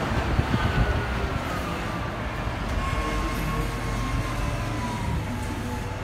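Caterpillar 120M motor grader's diesel engine running as the machine drives past on a dirt road. A deep rumble carries a thin whine that slowly falls in pitch, with a few knocks in the first second.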